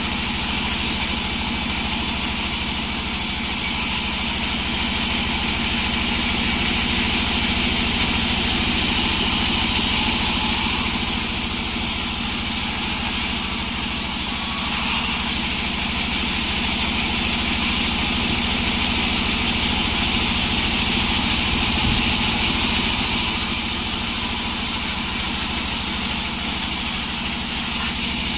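Sawmill running steadily: a continuous engine and machine noise that grows louder for a few seconds twice, about ten seconds in and again around twenty seconds in.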